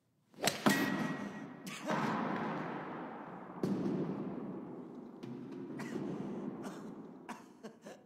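A golf ball struck hard and ricocheting around an enclosed, echoing court. Sharp cracks and thuds come about half a second in, again near two seconds and near three and a half seconds, one of them with a brief metallic ring. A long reverberant wash follows, with a few smaller knocks near the end.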